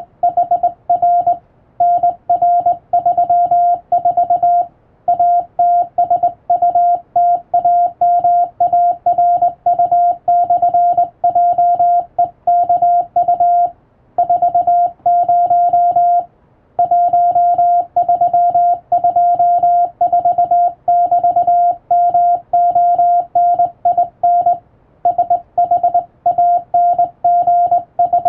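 Morse code (CW) sent by hand on a telegraph key: a single steady tone switched on and off into dots and dashes at a steady sending speed, with short gaps between letters and a couple of longer pauses between words.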